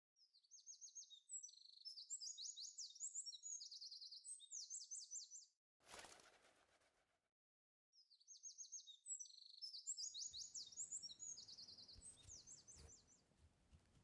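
Small-bird chirping and twittering as an added sound effect, the same quick chirp pattern played twice, with a brief swish about six seconds in that fades away.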